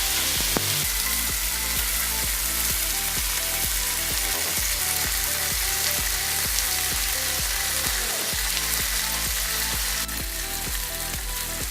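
Stir-fried crispy pork with holy basil sizzling in the hot pan just after the heat is turned off, a steady hiss that eases slightly near the end. Background music with a steady beat plays over it.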